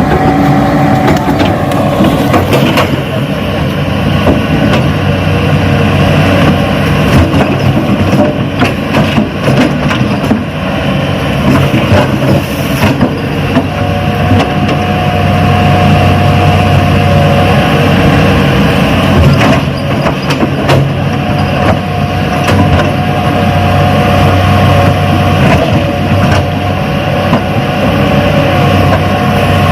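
Radio-controlled Hitachi excavator model running with a steady, engine-like hum, with scattered clicks and knocks as it works.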